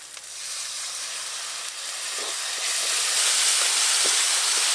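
Ground-spice masala sizzling and hissing in a hot wok as a little water is poured in from a clay pot to keep the spices from burning; the hiss swells about three seconds in.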